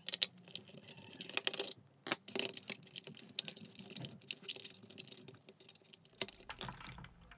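Irregular small clicks and taps of hard plastic parts being handled as an RC truck's axle is worked loose from its chassis and leaf-spring mounts.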